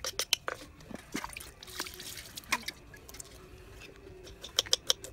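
Small kitchen knife cutting pieces of garlic and galangal on a round cutting board: sharp irregular ticks of the blade striking the board, with a quick run of taps near the end and a short scratchy rustle around the middle.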